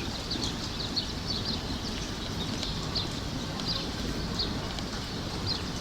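Birds chirping: short, high chirps at irregular intervals, about two a second, over a steady low outdoor background rumble.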